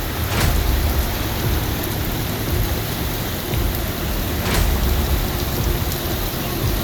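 Torrential rain pouring down: a steady hiss over a low rumble, broken twice by a brief sharp crack, about half a second in and again past the middle.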